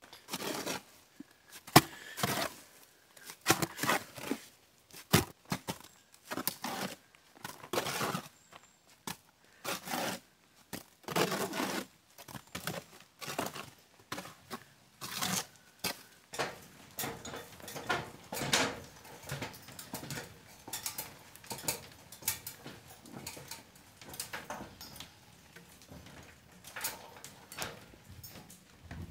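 Lime mortar being mixed by hand in a steel wheelbarrow: repeated gritty scraping strokes of a blade through wet sand and lime, at an uneven rhythm of roughly one stroke a second.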